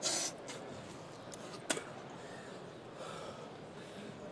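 A boxer's sharp, loud breath right at the start as he recovers between rounds, then a single sharp click about a second and a half later, over steady arena background noise.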